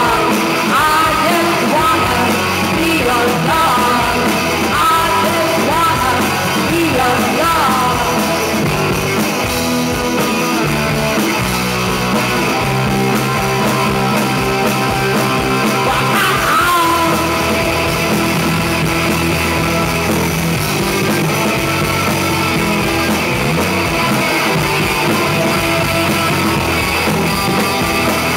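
A live rock band playing: electric guitars, bass and drums, with a singer's voice over them through the first third and again around the middle.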